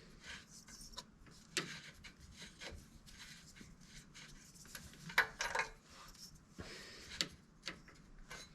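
Faint rubbing and a few light metallic clicks as an AEM wideband O2 sensor is screwed in by hand, its wire twisting and being untwisted as it turns, until the sensor seats.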